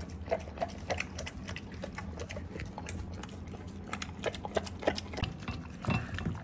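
English cream golden retriever eating wet raw food from a ceramic slow-feeder bowl: irregular wet smacking and chomping, with clicks of teeth and tongue against the bowl.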